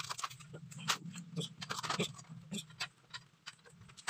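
Tie wire being handled and twisted around a door jamb and frame tubing: a string of small irregular clicks, ticks and scratches of wire on the frame.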